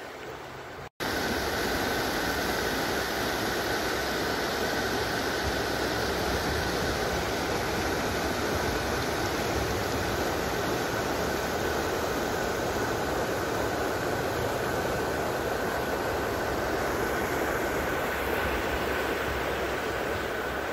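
Mountain river rapids rushing over rocks, a steady unbroken noise with a faint steady high tone over it, starting abruptly about a second in.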